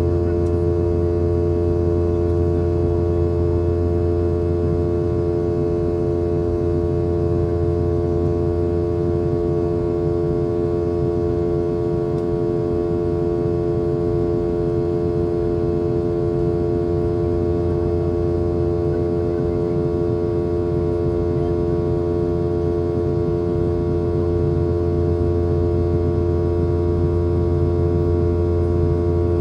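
Steady in-flight cabin drone of a Boeing 717's rear-mounted Rolls-Royce BR715 turbofans, with a couple of clear humming tones over a deep rumble, unchanging throughout.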